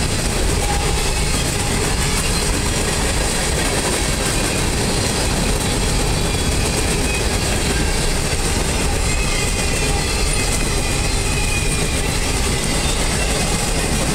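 A Norfolk Southern mixed freight train's boxcars and covered hoppers rolling past close by: a steady, loud rumble of steel wheels on rail.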